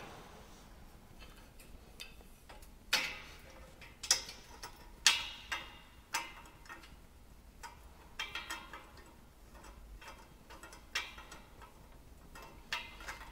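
Sharp metallic clicks and taps from a bolt and square nut being fitted and tightened on a metal switch bracket. Four louder clicks come about a second apart a few seconds in, followed by scattered lighter taps.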